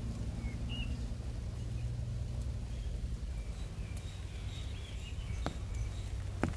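Outdoor ambience: a steady low hum and rumble that weakens after about three seconds, with faint bird chirps and a couple of light taps near the end.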